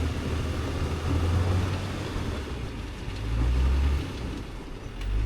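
Tank 500 SUV's engine running with the vehicle bogged down in soft wetland, a low rumble that swells and eases a few times over a steady noisy background.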